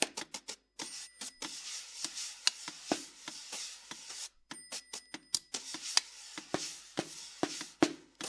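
Snare drum played with sticks in a contemporary percussion piece: quick, irregular taps and clicks on the drum and on the metronome set on its head, with two long stretches of rubbing, scraping noise, one starting about a second in and one starting about five seconds in.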